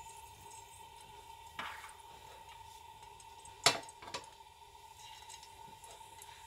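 A few sharp clinks of kitchenware being handled, the loudest about three and a half seconds in, over a faint steady high hum.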